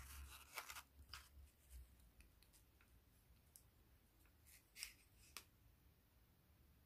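Near silence, with faint scattered clicks and taps as a watercolour postcard is handled on the desk and a brush touches the paper; a couple of the clicks, about five seconds in, are a little louder.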